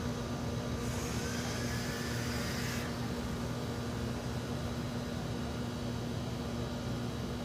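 Rebuildable vape atomizer with dual parallel 24-gauge coils at 0.45 ohm, fired at about 180 watts from a 3-series LiPo box mod: about a second in, a two-second draw gives a hiss of coil sizzle and air rushing through the airflow, with a faint rising whistle, that stops sharply. A steady low hum sits under it.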